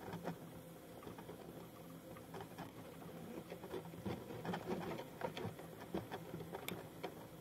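Faint handling noise on a handheld camcorder as it zooms: light, irregular clicks and taps over a low steady hum.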